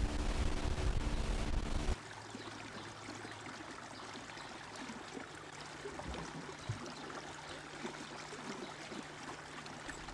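A boat's motor running steadily, cut off abruptly about two seconds in. It is followed by a much quieter, steady hiss of outdoor background with a faint low hum.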